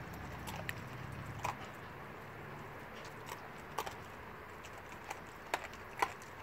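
Blue Bay Shepherd licking and smacking its chops after eating raw fish: scattered soft wet clicks and smacks, a few seconds apart. A low background rumble fades out about a second and a half in.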